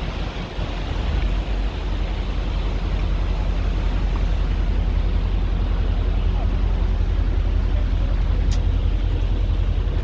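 Steady low engine rumble mixed with wind and rushing noise, growing a little over the first two seconds and then holding steady.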